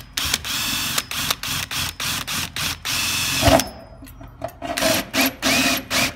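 Power drill spinning a 1⅛-inch hole saw into the sheet-metal facing of an insulated metal panel, run in short pulses about three a second. There is a single knock about three and a half seconds in and a brief pause before the cutting starts again.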